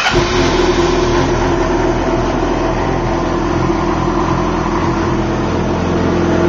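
2007 Yamaha R6's inline-four engine, fitted with a four-into-two exhaust, coming in abruptly and running at a steady idle.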